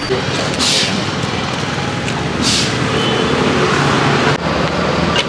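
Street traffic: a motor vehicle's engine running, with two short hisses about two seconds apart.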